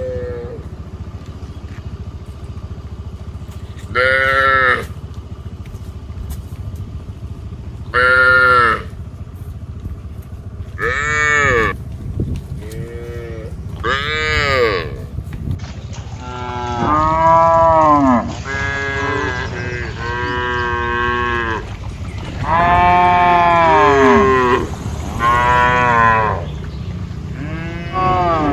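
Cattle mooing repeatedly over a steady low background hum. The first calls are single and come every few seconds; past the halfway point they come closer together and overlap, as if several animals are calling.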